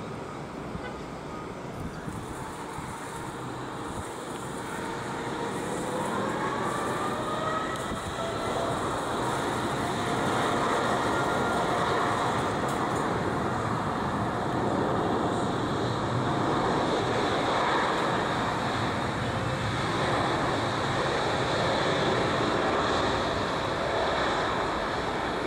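Jet engines of a Boeing 787-10 whining over a steady rumble. The whine rises in pitch and grows louder about six seconds in as the engines spool up, then holds steady.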